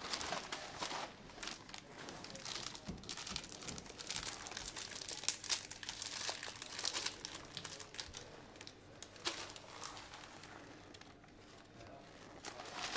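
Newspaper rustling and crinkling as it is handled, with irregular crackles that thin out near the end.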